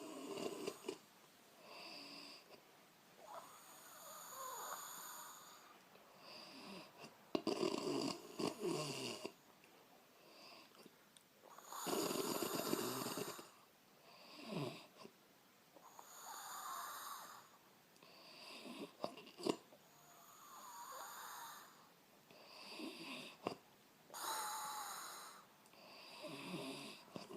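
A woman snoring in a string of loud, uneven snoring breaths, roughly one every two to three seconds, some long and some short.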